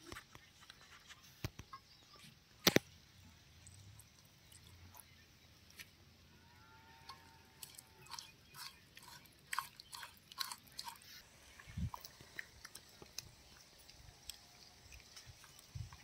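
A hand mixing a wet spice marinade of turmeric, chilli powder, paste and oil in a clay bowl: soft squelching and short clicks, thickest from about halfway through, with one sharp click about three seconds in.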